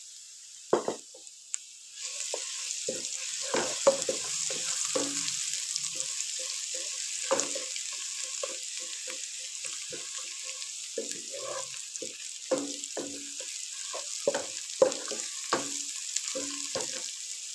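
Sliced onions and garlic-ginger paste frying in hot ghee with a steady sizzle that gets louder about two seconds in. Through it, a wooden spatula scrapes and knocks against the pot as the mixture is stirred.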